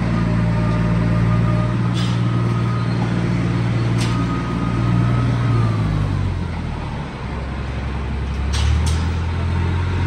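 Farm tractor's diesel engine running steadily, its pitch dropping and shifting a little past halfway through as the engine speed changes. A few sharp clicks are heard over it.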